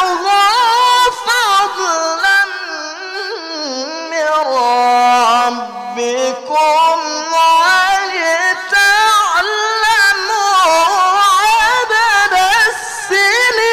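A male qari reciting the Quran in melodic tilawah style through a microphone. The voice holds long, ornamented melismatic lines, starting high in his range, sinking lower about halfway through and climbing back up again.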